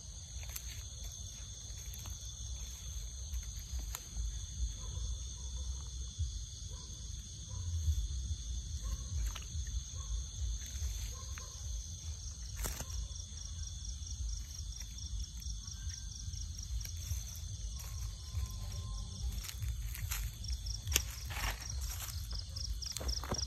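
Night insects, crickets among them, trilling steadily at a high pitch, joined near the end by a second insect with a fast pulsing call. Under them runs a low rumble with scattered rustling clicks.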